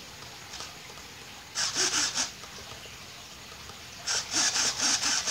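Small RC servos buzzing in quick pulses as the transmitter stick is moved, driving the plane's ailerons back and forth. There are two spells of it: a short one about a second and a half in and a longer one from about four seconds in.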